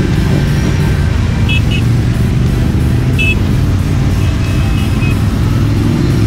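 Engines of a group of Ducati motorcycles riding past in a steady low rumble, mixed with music. A few short high beeps sound about a second and a half in, about three seconds in and near five seconds.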